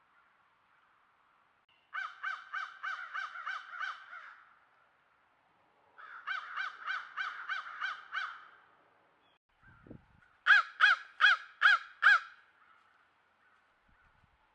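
Crows cawing in three quick bursts of about five to seven caws each, the last burst the loudest.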